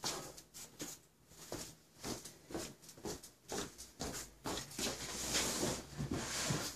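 Footsteps on a concrete floor, a string of soft irregular taps, then a denser rustle near the end as the heavy wet rug's fabric is gripped and shifted.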